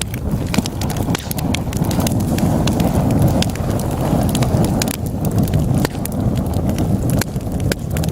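Wood fire burning in a fireplace: a steady low rumble of flames with frequent sharp crackles and pops from the burning logs, several a second.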